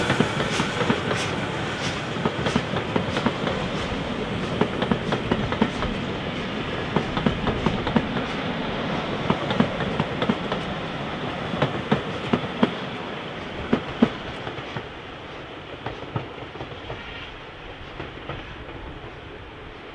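Steam-hauled passenger train's coaches rolling past, their wheels clicking irregularly over the rail joints, the sound fading steadily as the train draws away.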